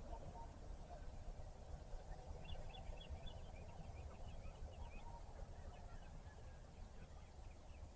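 Faint birdsong: a quick run of short, high chirping notes lasting a couple of seconds, over a steady low rumble.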